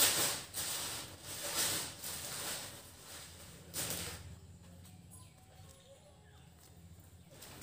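Cloth rustling and swishing as a folded cotton garment is shaken open and handled, in several swishes over the first four seconds. It then settles to faint handling sounds.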